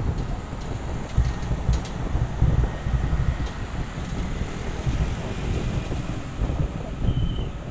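Wind buffeting the microphone in uneven gusts of low rumble over a steady rushing noise.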